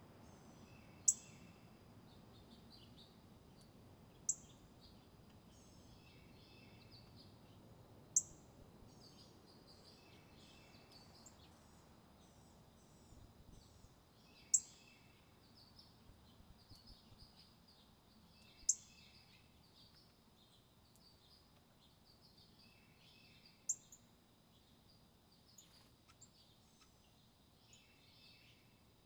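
Small birds calling: a loud, sharp, high call that drops in pitch, repeated six times a few seconds apart, among softer high chirps and twitters.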